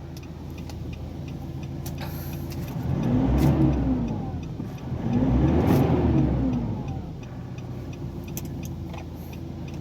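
Nissan Navara's YD25 diesel engine idling, then revved twice, its pitch and loudness rising and falling each time, before settling back to idle. The engine is running after a repair of a shorted suction control valve harness, the fault behind its hard starting and low power.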